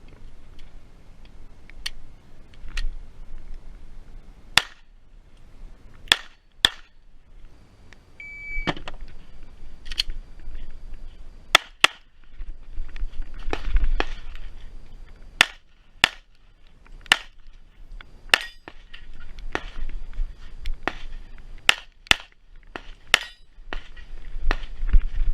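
Glock 45 9mm pistol firing a string of about twenty shots, singly and in quick pairs, with short pauses between groups.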